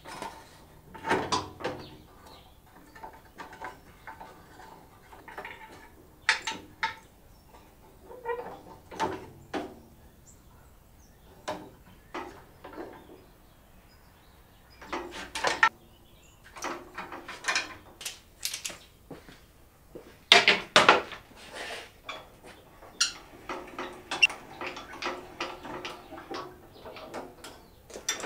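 Irregular metallic clinks and knocks from hand work on a table saw's motor mount: a V-belt being fitted and the mounting bolts tightened with a wrench against the cast-iron cabinet and steel bracket.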